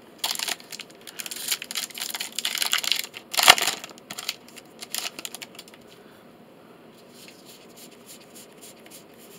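A foil Magic: The Gathering booster pack wrapper being torn open and crinkled by hand, with the loudest crackle about three and a half seconds in. After that only soft, faint clicks as the stack of cards is slid out and handled.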